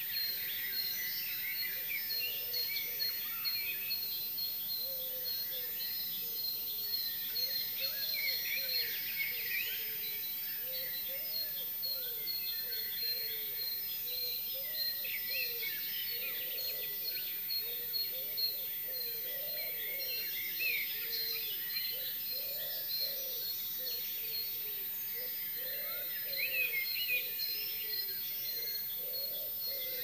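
Dawn chorus of many songbirds singing over one another, with quick chirps and trills and a high note repeated steadily through most of it. Lower wavering calls run underneath.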